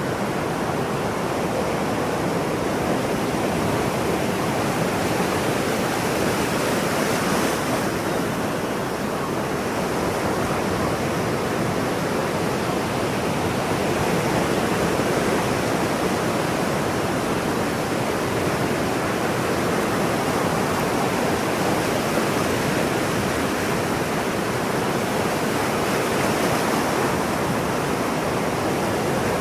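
Ocean surf: a steady wash of breaking waves with no distinct swells or crashes.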